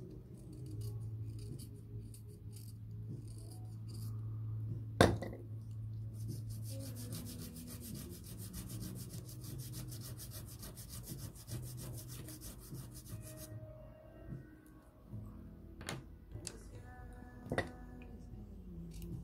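Pastel pencil tip rubbed quickly back and forth on sandpaper, a fast run of scratchy rasping strokes lasting about seven seconds from around a third of the way in. There are a few sharp clicks before and after, and soft background music underneath.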